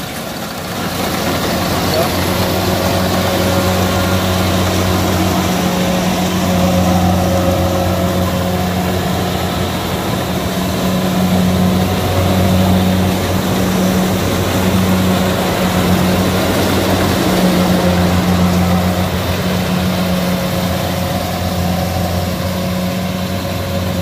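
Kubota DC68G combine harvester's diesel engine running steadily under load while it cuts and threshes rice, a constant low hum under a dense mechanical rush from the cutting header and threshing drum.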